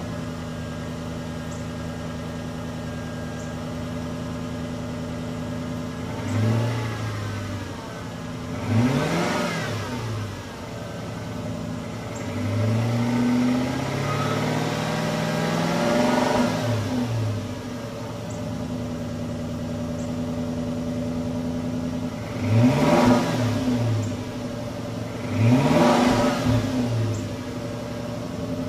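2003 Infiniti M45's 4.5-litre V8 idling through its exhaust, blipped about six times: each rev climbs quickly and falls back to idle. One rev about halfway through is held a little longer, and the last two come close together near the end.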